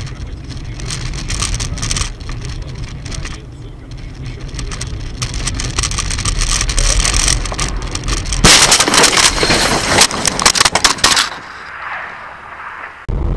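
Car road and tyre noise heard from inside the cabin, then about eight seconds in a crash: a loud burst of crunching and cracking impacts lasting about three seconds as the car leaves the road into the trees, followed by quieter noise.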